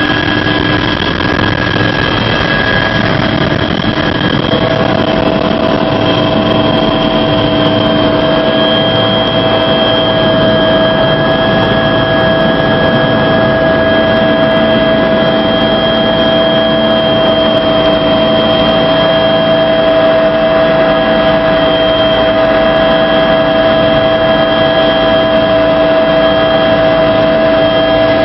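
Helicopter in flight heard from inside its cabin: loud, steady turbine and rotor noise with several high, steady whining tones. One of the whines sets in about four seconds in.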